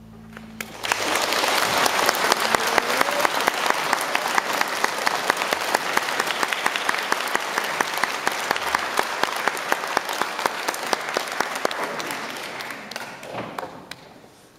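The final low chord of a string orchestra dies away, and about a second in an audience starts applauding. The applause holds steady, then thins out and fades near the end.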